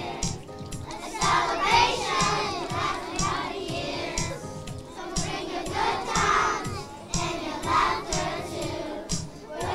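A choir of first-grade children singing together over a recorded backing track with a steady beat.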